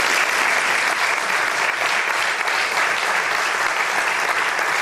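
Audience applause: many people clapping at a steady level.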